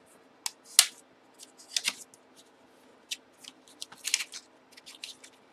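Paper envelope crinkling and crackling as it is torn open and unfolded by hand, in short sharp crinkles with the loudest just under a second in and again around two and four seconds in.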